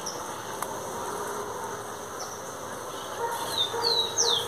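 Birds calling outdoors: several short whistled notes that fall in pitch, most of them bunched in the last second and a half, over a steady background hiss.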